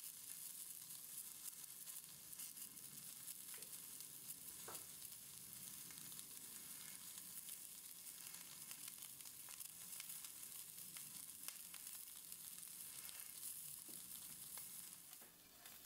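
Ahi tuna steak searing in grapeseed oil in a hot stainless steel pan: a faint, steady sizzle with a few small crackles.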